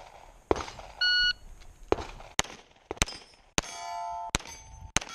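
Shot-timer start beep about a second in, then a string of about six Glock pistol shots over roughly three seconds, with steel plates ringing after hits. One sharp bang comes just before the beep.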